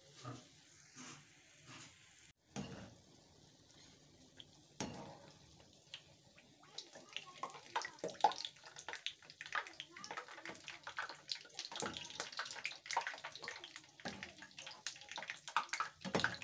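Bofrot dough balls deep-frying in hot oil in a frying pan: the oil sizzles and crackles, growing busier from about six seconds in. A few louder knocks come from the utensil turning them.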